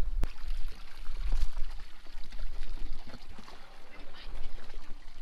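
Water sloshing and lapping against the hull of an anchored boat, with a low rumble of wind on the microphone and a sharp click just after the start.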